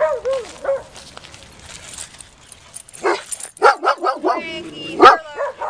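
Dogs at play barking and yipping: a few sharp barks about three seconds in, a thin whine just after, and the loudest bark about five seconds in.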